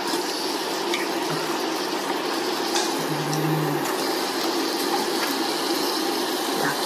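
Broth simmering in an electric hot pot, a steady bubbling hiss as raw beef slices cook in it.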